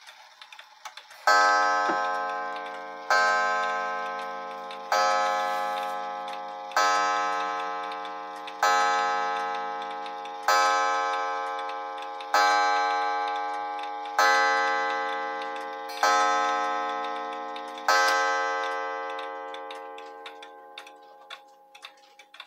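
D&A wall clock's coil gong striking the hour: ten strokes about two seconds apart, each ringing and slowly dying away. The clock's ticking is faintly heard underneath.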